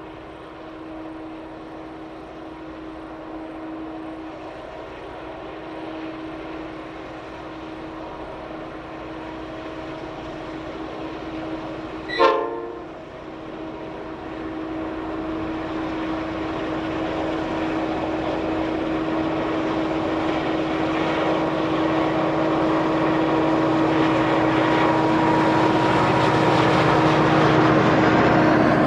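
Two diesel-electric freight locomotives working hard up a steep grade, their engines a steady drone that grows louder as the train draws near. A long train of wheels and wagons rumbles past near the end. A single sharp bang cuts in about twelve seconds in.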